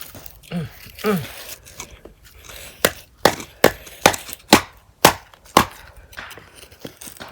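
A short vocal sound, then a run of about seven sharp knocks on wood, roughly two a second.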